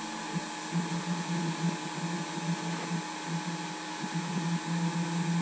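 Handheld hot-air rework gun blowing steadily on an LED module, a rush of air with a low motor hum that keeps cutting in and out, heating a surface-mount LED pixel to reflow it.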